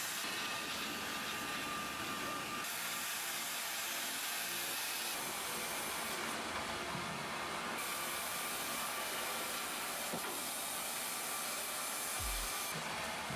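Steady hissing machine noise with a faint whine, the sound of wood-cutting machinery at work. Its character changes abruptly a few times, at about 2.5, 6, 8 and 12.5 seconds in.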